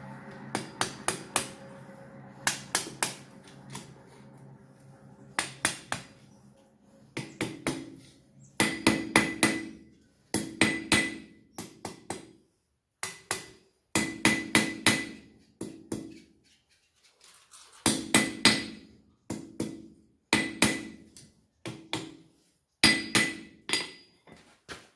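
Blacksmith's hammer forging steel on an anvil: quick runs of three to six blows with short pauses between them, each blow ringing briefly.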